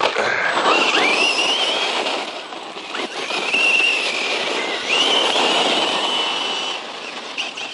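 Brushless electric motor of a 1/10 scale RC truck whining at full throttle in three surges. Each surge opens with a rising whine, over the rushing noise of the drivetrain and tyres churning the ground.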